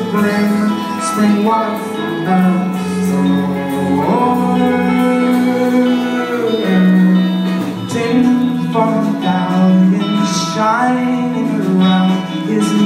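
An indie folk-pop band playing a song live on keyboard, violin, guitar, upright bass and drums.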